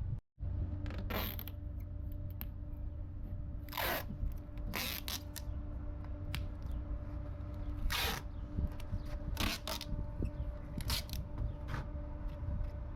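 Mechanical clicks and scrapes at irregular intervals over a steady low hum, typical of hand tools worked on metal.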